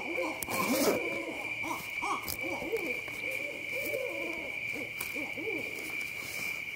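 Owls hooting in a run of short rising-and-falling hoots, several overlapping at different pitches, over a steady high insect trill. A short sharp noise about a second in is the loudest moment.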